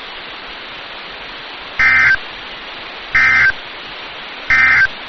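Three short bursts of Emergency Alert System SAME data tones, a little over a second apart, over a steady hiss of radio static. They are the end-of-message code that closes the alert.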